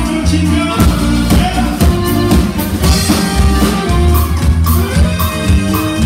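Live norteño band music with accordion, saxophone, guitar, electric bass and drum kit playing to a steady beat.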